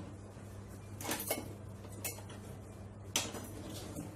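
A whisk stirring milk with flour and starch in an enamelled cast-iron pot, knocking against the pot a few times: about a second in, at two seconds, and just after three seconds.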